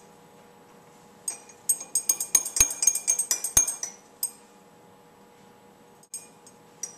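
Stirring rod clinking rapidly against the inside of a glass beaker for about three seconds, starting about a second in, as the solution is stirred during a drop-by-drop acid titration; a few fainter clinks follow near the end.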